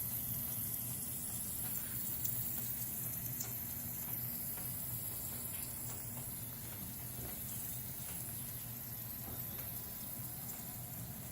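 Water running steadily from a leaking water heater, with a few faint drips or ticks.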